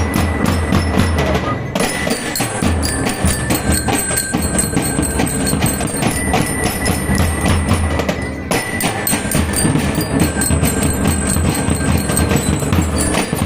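Drum and lyre band playing: bell lyres ringing out a melody over fast, steady drumming. The drumming briefly thins twice, about 2 and 8 seconds in.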